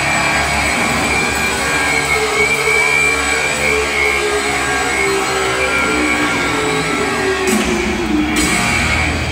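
Live heavy metal band holding out a long sustained closing note that slowly slides down in pitch, ending the song; the sound thins out near the end.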